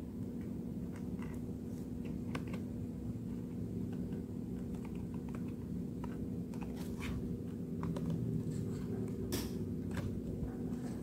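Faint scattered ticks and crackles of paper and cardboard model pieces being held and handled, over a steady low hum.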